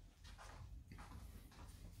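A cloth rag wiping over a milling-machine vise and aluminium workpiece: about three faint, quick swishes.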